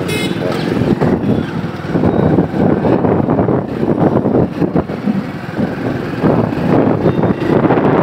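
Wind buffeting the microphone of a two-wheeler being ridden at speed, with engine and road noise underneath. A brief high pitched tone sounds right at the start.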